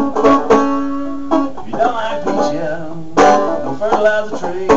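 Solo banjo playing an instrumental tune, picked notes ringing one after another, with a note held for about a second near the start and a sharp, loud chord about three seconds in.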